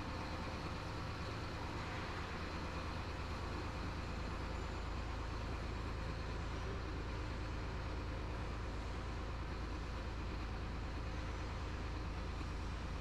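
Chenglong 375 truck's diesel engine running steadily at low revs while the truck is manoeuvred in reverse, heard from inside the cab.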